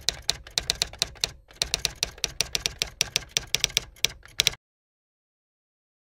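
Typing sound effect: rapid keystroke clicks, about five or six a second, with a short break about a second and a half in, laid over text appearing letter by letter. The clicks stop about four and a half seconds in and the sound cuts to dead silence.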